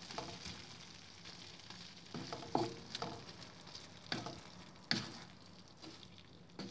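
Shrimp in sauce sizzling in a frying pan while a spatula stirs and scrapes through them, with several sharp knocks of the spatula against the pan, the loudest about two and a half and five seconds in. The sizzle dies down near the end.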